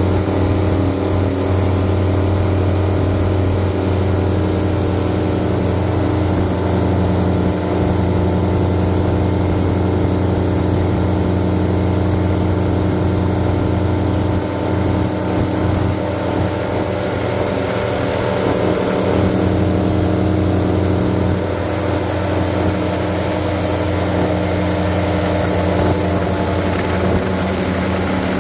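Airboat engine and its open air propeller running steadily at speed, a loud, even drone heard from on board.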